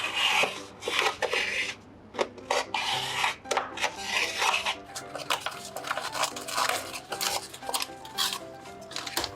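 Paper being rubbed and scraped by hand, over background music. There are two long rasping strokes in the first half, then shorter scrapes and clicks.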